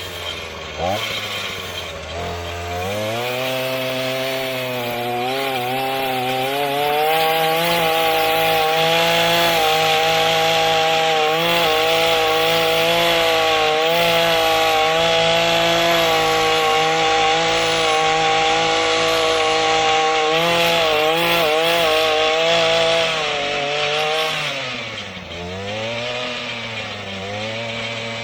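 Earthquake MC33 mini tiller's 33cc two-stroke engine revving up from a low idle about two seconds in, then running at high speed as the tines dig into sod. Near the end the revs sag for a moment, then pick up again.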